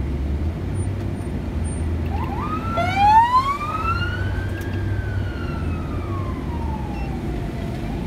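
Police car siren: a short yelp about two seconds in, then one slow wail that rises in pitch to a peak near the middle and falls slowly. Heard from inside a moving car, over its steady low road hum.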